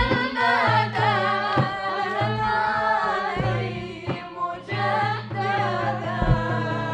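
An Arabic devotional song (nasheed) sung with a melismatic solo voice, over a steady low note that drops out and returns several times.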